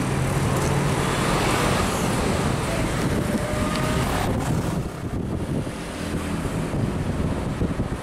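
Street traffic noise: engines and tyres of passing cars and vans. About halfway through it gives way to a duller rumble of road and wind noise heard from inside a moving car.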